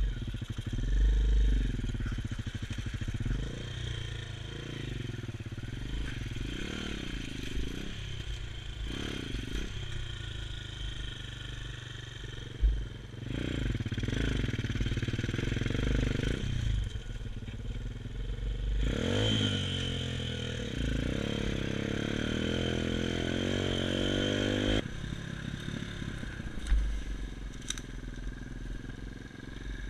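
Xmotos XB33 140cc pit bike's single-cylinder four-stroke engine being ridden, revving up and down with the throttle, with wind rumbling on the microphone. About two-thirds of the way through it revs up and holds a high, steady note for several seconds before dropping back.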